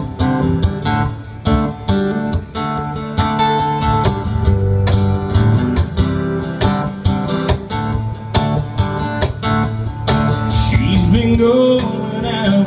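Acoustic guitar strumming chords in a country song's instrumental intro.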